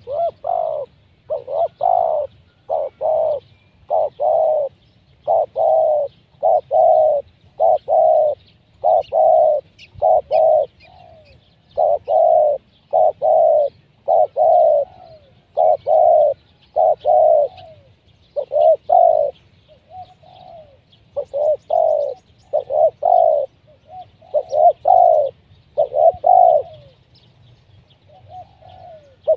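Spotted dove (tekukur) cooing over and over in quick runs of two to four coos with short breaks. It is the decoy bird calling from the ground to lure wild doves down.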